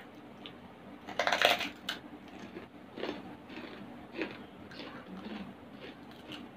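Chicharon (crispy pork crackling) crunching loudly as it is bitten about a second in, then chewed with softer crunches about every half second.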